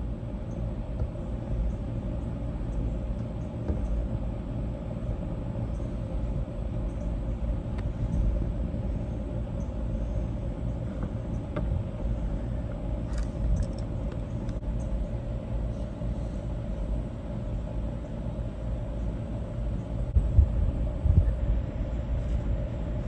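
Steady low rumble with a constant mid-pitched hum running underneath, and a few louder low thumps about twenty seconds in.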